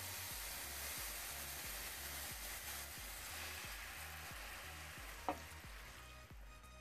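Diced mushrooms, carrots and onion sizzling in a hot frying pan as a cup of water is poured in from a measuring cup; the sizzle slowly dies down and drops away near the end.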